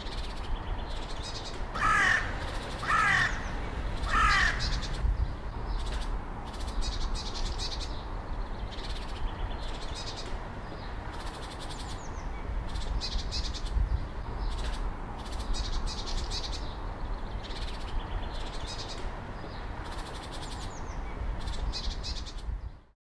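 Great green bush-cricket stridulating: a high-pitched buzzing song in repeated bursts, the male's mating call. A crow caws three times about two seconds in, and the sound fades out just before the end.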